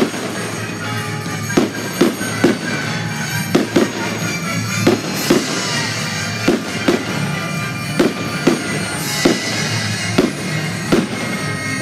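Fireworks shells bursting in a quick, irregular series of sharp bangs, often in close pairs, with bursts of crackling about halfway through and again near the end. Music plays underneath.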